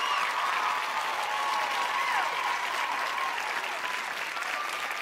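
Studio audience applauding, a steady dense clapping throughout.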